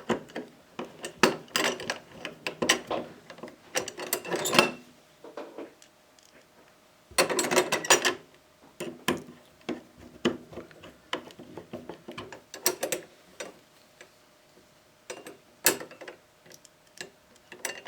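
Screwdriver driving screws into the metal latch hardware on a trunk, heard as several bursts of rapid clicking with short pauses between them.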